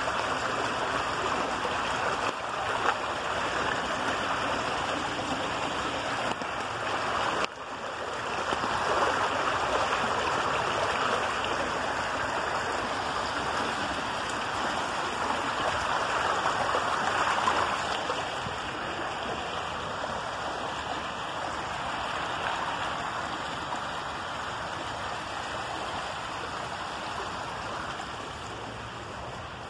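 Rainwater runoff rushing steadily down a shallow channel and splashing over rock and a concrete lip. It breaks off briefly about seven and a half seconds in, then goes on, a little quieter over the last third.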